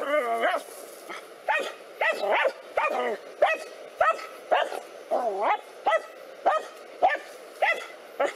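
Dogs barking at a snake, a rapid repeated series of barks about two a second, with a longer wavering yelp at the start and another about five seconds in.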